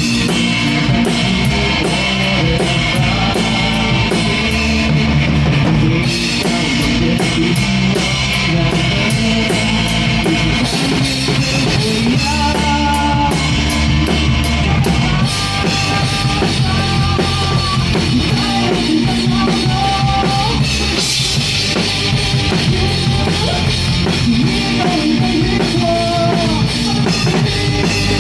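Live rock band playing an instrumental passage: drum kit with steady, fast cymbal strokes over bass drum, bass and electric guitar. A lead melody line comes in about a third of the way through.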